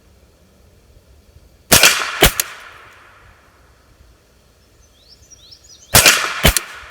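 Suppressed 9mm shots from a PSA AKV pistol fitted with a Silencer Co Octane 45 HD suppressor: two pairs of shots, the two in each pair about half a second apart, the pairs about four seconds apart. Each shot is a sharp crack that dies away quickly, quiet enough that the shooters find no hearing protection needed.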